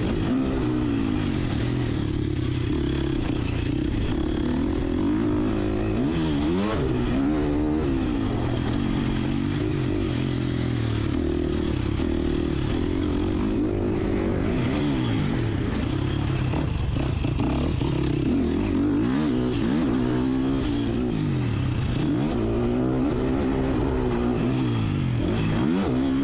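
2019 Husqvarna FC 350 four-stroke single-cylinder motocross bike being ridden hard. The engine pitch rises and falls again and again as the rider opens the throttle and rolls off through the track's jumps and turns.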